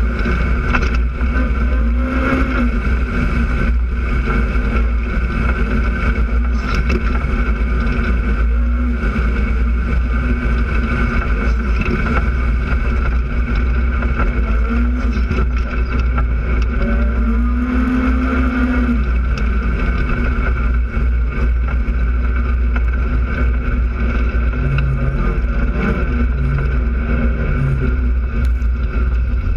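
Polaris RZR side-by-side's engine running steadily while driving, over a heavy low rumble; the engine note rises briefly a couple of times with the throttle.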